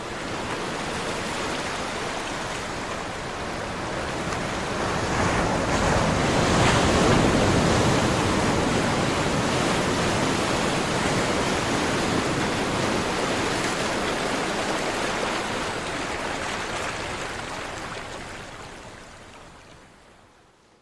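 Sea surf: one long wave swelling to its loudest about a third of the way in, then washing out and slowly fading away.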